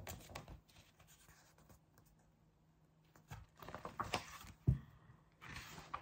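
After about three nearly silent seconds, the pages of a paperback book riffle and rustle as the book is handled, with one short knock partway through.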